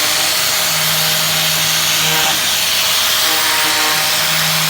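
Angle grinder running steadily with a loud, even whine, used to cut through a pizza.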